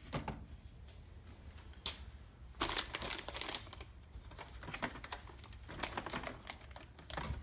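A clear plastic bag crinkling and rustling as it is handled, with small clicks and knocks of parts being moved in a hard plastic carrying case. The crinkling is loudest for about a second, starting around two and a half seconds in.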